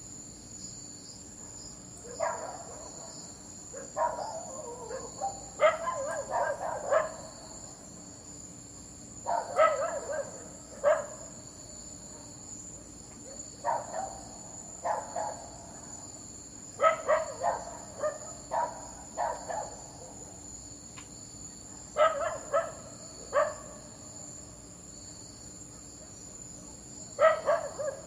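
A dog barking in short bouts of a few barks each, a new bout every few seconds, over crickets chirping steadily.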